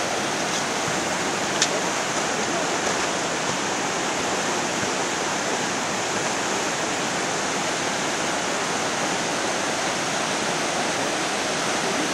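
The Verdon river rushing over rapids: a steady, even rush of water, with one short click about a second and a half in.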